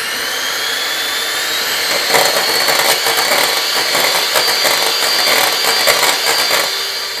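Electric hand mixer whipping egg whites in a stainless steel bowl at medium speed. Its motor whine rises and settles to a steady high pitch in the first second, and from about two seconds in the beaters rattle against the bowl. The whites, with a few drops of lemon juice in them, are being beaten toward soft peaks.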